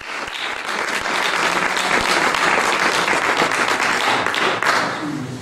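Audience applauding: dense, steady clapping that starts abruptly and thins out near the end.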